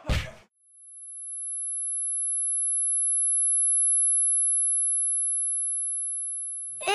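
A single high-pitched steady tone, the ear-ringing sound effect for being knocked out and dazed after a punch. It swells in over the first few seconds and fades away near the end.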